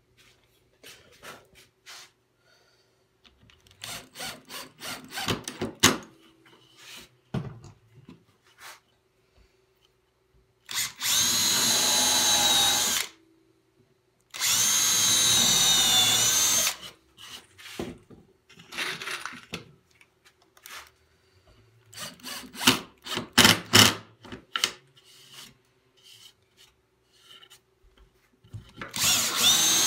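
Cordless drill boring into a wooden board in two steady runs of about two seconds each, its motor whine dipping slightly under load. Short knocks and clicks of handling come between the runs, and another run starts near the end.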